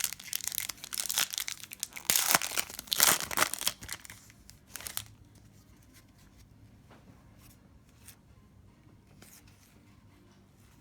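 An Upper Deck hockey card pack wrapper being torn open and crinkled, with loud crackling for about the first five seconds. After that come only a few faint clicks of the cards being handled.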